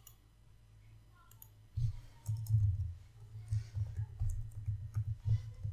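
Typing on a computer keyboard: an irregular run of keystrokes, heard as dull low thumps with faint clicks. It starts about two seconds in, after a short quiet stretch.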